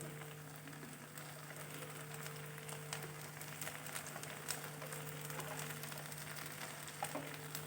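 Faint sizzling with scattered small crackles from ginger paste cooking in ghee and honey in a kadai, over a steady low hum.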